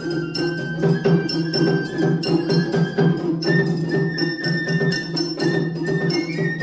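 Japanese matsuri bayashi festival music of the Funabashi school: a shinobue bamboo flute plays high held notes over fast, even strokes on shime-daiko drums and a large drum. The flute steps up to a higher note about halfway through.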